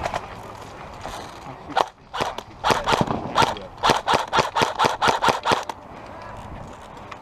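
Airsoft guns firing: a couple of sharp shots about two seconds in, then a quick run of single shots at about three to four a second for several seconds before stopping.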